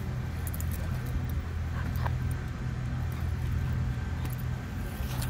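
A portable generator running, giving a steady low engine hum.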